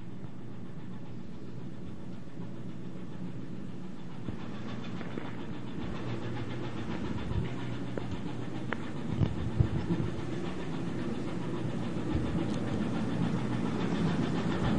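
Ship's engine running with a steady low hum under wind and sea noise, slowly growing louder, with a few dull knocks about two-thirds of the way through.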